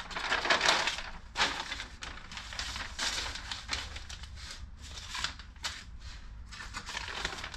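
Large paper plan sheets rustling and crinkling as they are pulled out and leafed through by hand. The rustles come in irregular bursts and are loudest in the first second.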